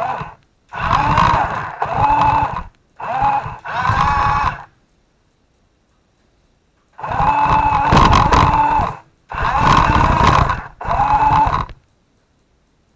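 RC toy truck's electric motor and gears whining in short throttle bursts as it drives, about seven bursts of one to two seconds each, with a longer pause in the middle and silence in between.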